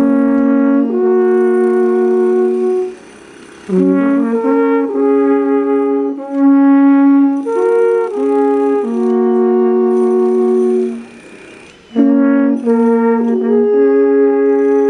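Swiss alphorns playing a slow melody of long held notes. There are two short breaks between phrases, about three seconds in and about eleven seconds in.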